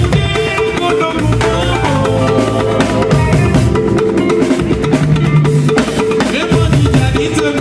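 Band music with a drum kit and percussion keeping a steady beat under held keyboard-like notes.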